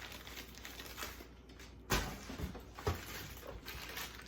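Rustling and handling of packaged merchandise from an unboxing, with a sharp knock about two seconds in and a lighter click about a second later.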